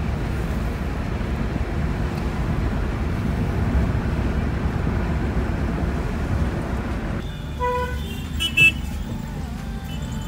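Steady low road and engine rumble inside a moving car's cabin. Vehicle horns honk a couple of times from about seven seconds in, the second one short and loud.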